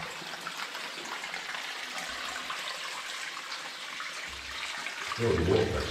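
Steady hiss of running water in a cave, with a brief voice near the end.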